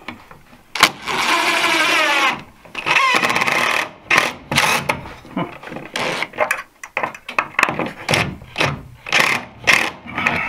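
Cordless DeWalt drill driving a screw through a metal electrical box into a wooden stud: the motor runs in two longer pulls with a whine that rises and falls, then in a string of short trigger bursts as the screw goes in tight.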